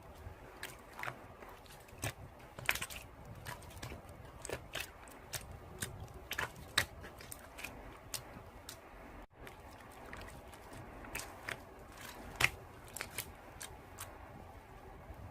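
Slime being played with by hand, giving a run of irregular sticky clicks and pops.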